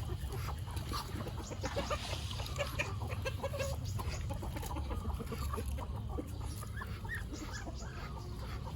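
A flock of chickens clucking while they feed, with many short, scattered calls and clicks over a steady low rumble.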